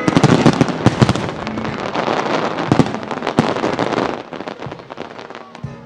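Fireworks display: dense crackling and popping from many shells bursting at once, with sharp bangs among them. It dies away about four seconds in.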